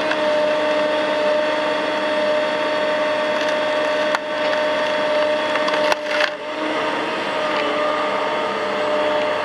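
Cat M316D wheeled excavator with a tree-cutting head on its boom cutting through a tree's limbs: the engine and hydraulics run with a steady whine, and the wood cracks sharply about four and six seconds in.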